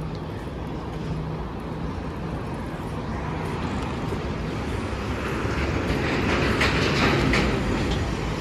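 Street traffic noise with an articulated city bus passing close by. Its sound swells over a few seconds to a peak about three quarters of the way in, then eases.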